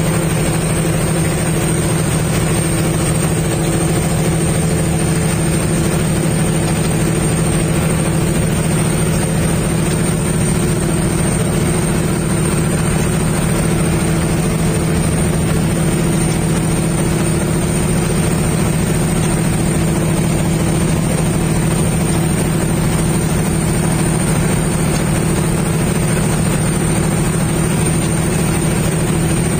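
Fishing boat's engine running steadily under way, a loud even drone that does not change, with the rush of the wake mixed in.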